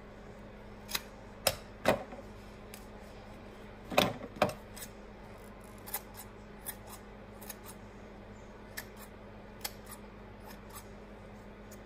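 Scissors snipping through yarn to trim a pom-pom: irregular sharp snips, the loudest few in the first half and lighter ones spaced out after.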